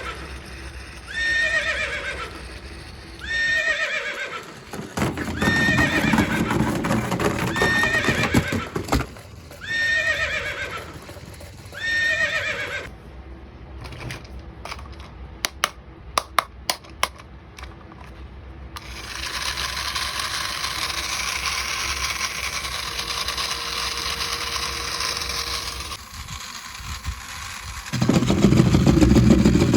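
A battery-powered walking toy plays a recorded horse whinny over and over, about once a second, for some 12 seconds. A quick run of sharp clicks follows, then a steady hiss, and near the end a louder low rumble starts.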